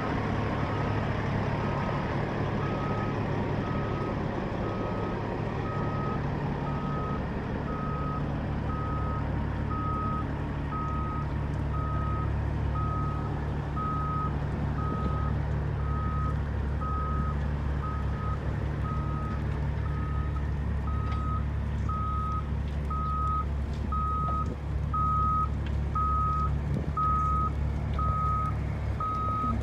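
Diesel engine of a Caterpillar AP655 track asphalt paver running steadily while its travel alarm beeps evenly, about one and a half beeps a second, as the machine is driven off a lowboy trailer.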